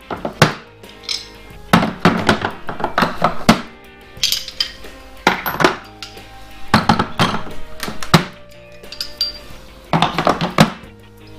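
Metal sockets, spanners and other hand tools clinking and clacking as they are put back into the slots of a tool kit case, in a cluster of knocks about every second. Background music plays underneath.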